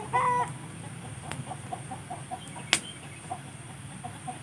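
Chickens clucking, a run of short calls a few times a second, with a louder drawn-out call just after the start. Two sharp clicks come through partway in.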